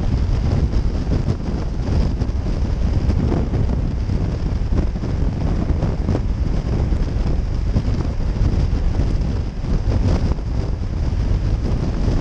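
Steady wind buffeting the microphone of a motorcycle riding at highway speed, with the bike's running and road noise mixed in underneath.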